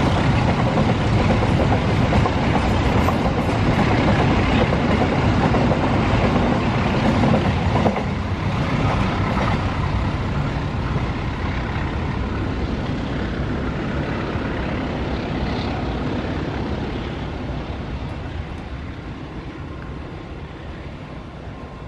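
Freight train of flat wagons rolling past on the near track, wheels running on the rails. About eight seconds in, the last wagon clears and the sound drops, then fades steadily as the train draws away.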